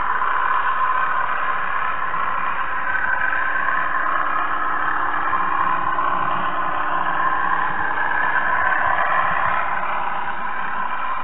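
Narrow-gauge model train running along its track, picked up by a camera riding on the train: a steady whirring and rolling noise with no change in pace.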